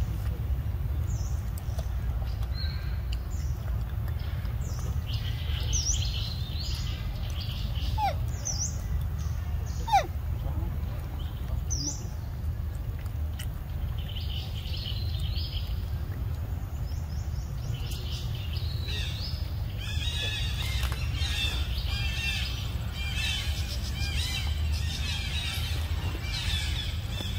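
Birds chirping and calling outdoors, scattered short high calls at first and a busier run of chirps from about two-thirds of the way through, over a steady low rumble. A single sharp click about ten seconds in.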